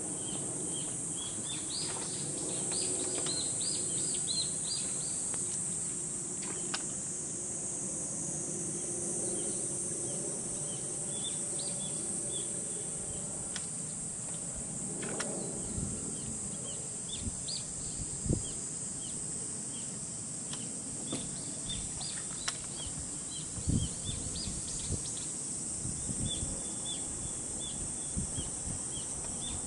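Outdoor lake ambience: many short bird chirps over a steady high hiss, with a few dull knocks in the second half from handling in the boat.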